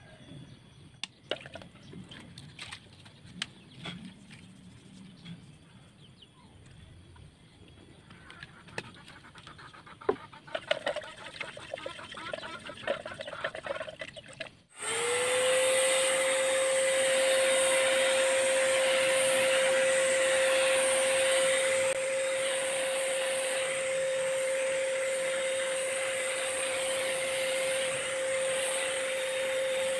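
Light clicks and scrapes of a stick stirring finish in a tin can. Then, after a sudden cut about halfway, an electric paint sprayer starts up, its motor rising to a steady hum under a loud, even hiss of air as it sprays clear matte lacquer.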